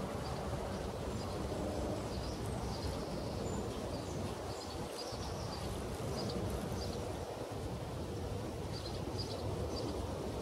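Outdoor tree-canopy ambience: a steady low rumble with faint, short, high bird chirps scattered throughout.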